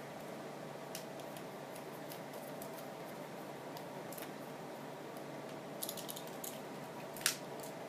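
Light clicks and rattles of small parts and a tool being handled on a plastic RC toy car as it is taken apart, over a faint steady hum. A short run of clicks comes about six seconds in, and one sharper click near the end.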